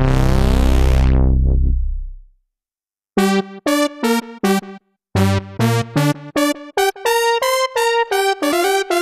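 Sequential Pro 3 analog synthesizer: a held low note with its filter sweeping open and then closed, fading out a little over two seconds in. After a brief silence, a fast sequence of short staccato notes.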